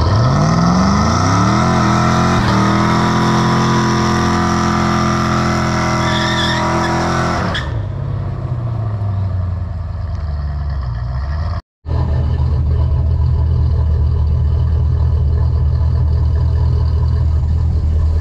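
Dodge Dakota R/T's 360 Magnum V8 revving up sharply and held at high revs in a burnout, the rear tyres spinning, until the revs and tyre noise drop off about seven and a half seconds in. After a short cut, the V8 runs with a steady low rumble.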